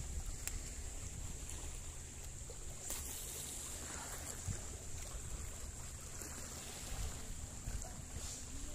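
Steady low rumble of wind on the microphone and the open sea, with a faint steady high-pitched hiss over it.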